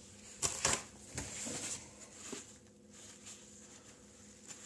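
Two light knocks about half a second in, then soft rustling and handling noises as the tabletop items are touched, over a faint steady hum.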